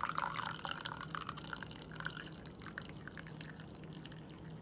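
Hot coffee poured from a glass pour-over carafe into a cup. The stream trails off about a second in, leaving faint drips.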